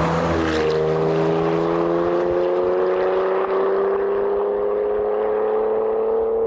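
Porsche Macan S turbocharged V6 through a Valvetronic Designs exhaust, accelerating: a gearshift just after the start, then the exhaust note climbs slowly and steadily through the next gear.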